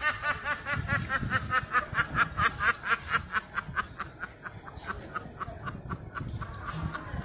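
A long, rapid snickering laugh, about five short pulses a second, growing fainter in the second half.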